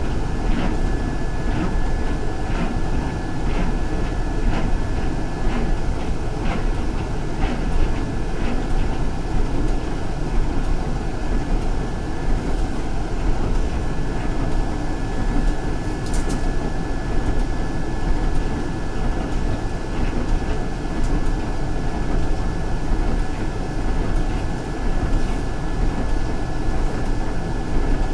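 Inside a moving city transit bus: a steady engine and road rumble with a faint, steady high whine. A regular ticking runs through the first nine seconds or so, and there is a single sharp click about sixteen seconds in.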